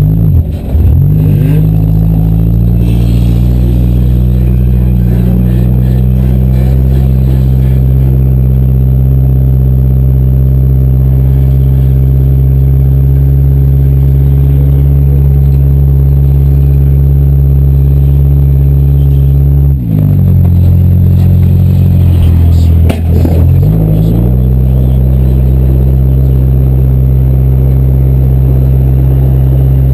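Demolition derby car's engine running loud at steady high revs. The revs drop briefly twice, about two thirds of the way through, and then climb back.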